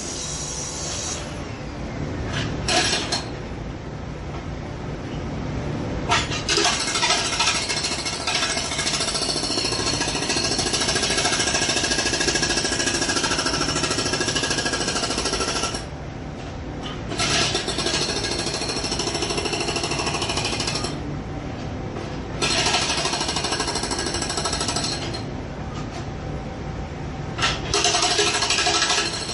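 Electric jackhammer hammering rapidly in runs, the longest about ten seconds, broken by short pauses where only a lower rumble remains.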